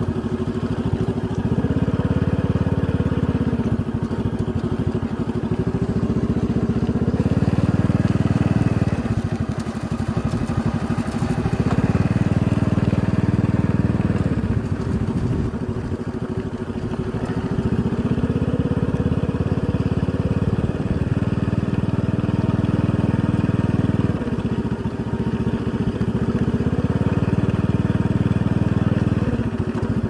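Motorcycle engine running while riding, its note rising and falling with the throttle every few seconds.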